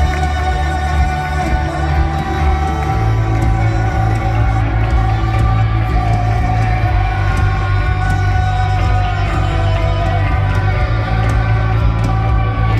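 Rock band playing loud at a live concert, through the venue's sound system: guitars, bass and drums. The bass line shifts about three seconds in.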